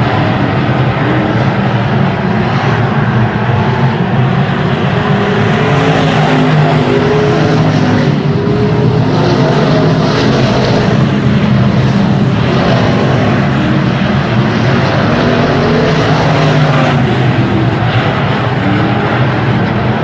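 Stock car racing engines running hard, their pitch rising and falling with the throttle through the laps.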